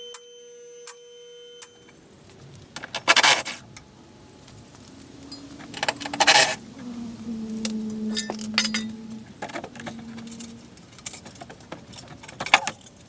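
Metal items jingling and clinking as they are handled, with three louder sharp clinks about three, six and twelve and a half seconds in.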